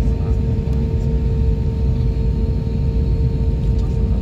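Inside a jet airliner's cabin while taxiing: a steady low rumble from the engines and the rolling aircraft, with a steady hum over it.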